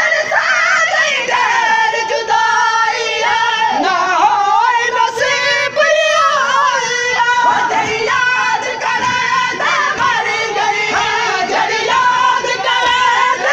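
A crowd of men singing a noha, a Shia mourning lament, loudly, with several wavering voices overlapping.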